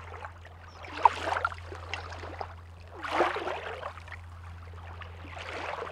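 Sea water lapping and splashing in three soft washes about two seconds apart, over a low steady hum.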